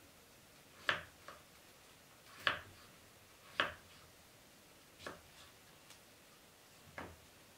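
Kitchen knife cutting raw potatoes into strips on a wooden cutting board: about six separate knocks of the blade on the board, irregularly spaced, three of them louder than the others.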